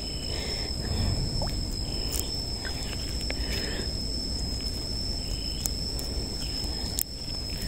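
Steady high-pitched drone of insects, likely crickets, held unchanged throughout. Under it are faint splashing and rustling sounds as a gill net is handled at the water's surface, with a few soft clicks.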